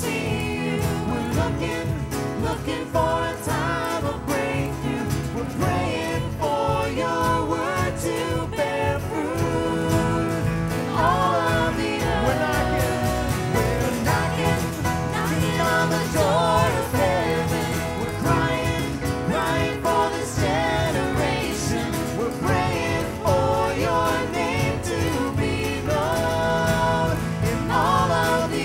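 Christian worship song played by a band with a steady beat, its gliding melody line carried over guitar and bass with a country feel, and no sung lyrics.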